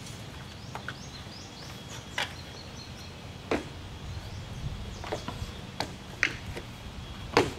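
Scattered sharp knocks and clicks, about seven spread across the few seconds, the loudest near the end, from hand assembly work on a metal playset swing bar, over a steady low background rumble.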